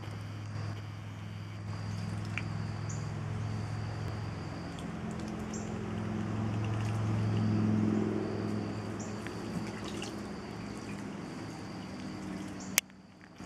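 Young ducks splashing and dabbling in a shallow plastic wading pool, water sloshing and dripping, with louder splashing around the middle. A steady low hum runs underneath.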